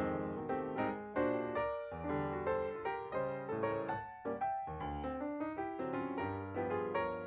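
Background piano music: a melody of quickly struck notes with soft chords.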